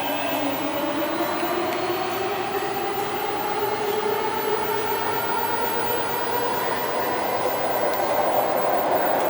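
MTR K-Train electric multiple unit running through the station, its motors whining in two tones that climb steadily in pitch as it gathers speed, over rumbling wheel and track noise.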